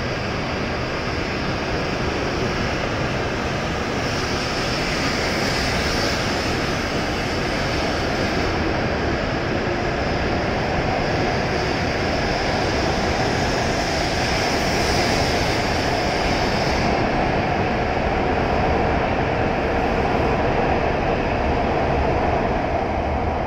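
E7 series Shinkansen train departing and gathering speed alongside the platform, its running noise building steadily, with a hum that strengthens in the second half.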